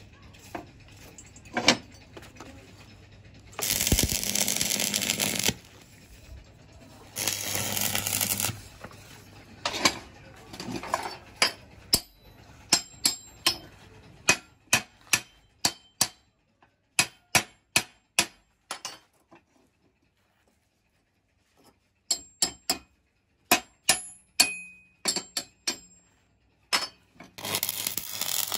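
Stick (arc) welding on steel: two short bursts of arc crackle as tack welds are laid, then a long run of sharp metal taps, about two a second, from a small hammer knocking on the welded pieces. Near the end the welding arc strikes up again with a steady crackle.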